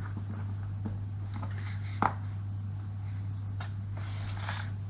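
Small clicks and light scraping from handling plastic and metal laptop lid parts and screws, with one sharper click about two seconds in, over a steady low hum.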